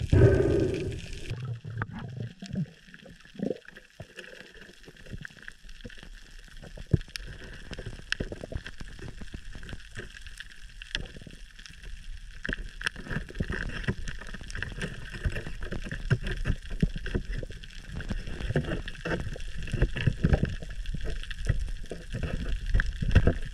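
Underwater sound through the camera housing: a loud rush of water at the start, then a steady crackle of many sharp clicks over a low rumble of moving water, the clicks growing denser about halfway through.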